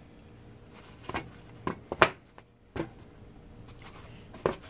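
A whole snapper being turned in flour on a plate: several short sharp taps and knocks against the plate, the loudest about two seconds in, over a faint steady hum.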